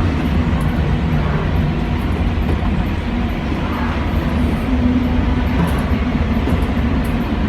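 Strong gale wind buffeting the microphone as a steady low rumble, over the noise of a rough sea.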